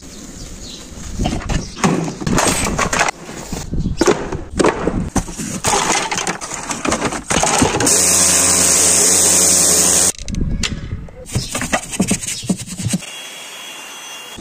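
Knocks, clicks and scraping from cleaning work, then a pressure washer jetting water onto a carpet floor mat: a steady loud hiss lasting about two seconds. More knocks follow, and near the end a small cordless tool's motor runs steadily with a whine.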